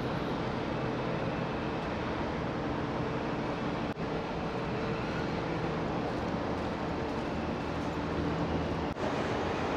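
Steady mechanical drone of machinery at a ferry berth, with a low hum under a noisy rush. It breaks off briefly twice, about four seconds in and near the end.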